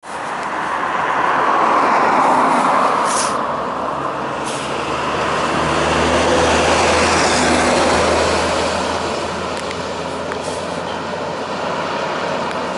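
Heavy road traffic passing on a highway: a bus and a lorry go by with a loud rush of tyre and engine noise about two seconds in, then a diesel engine's low drone rises and holds for a couple of seconds around the middle. Two short hisses stand out a little after three and four and a half seconds.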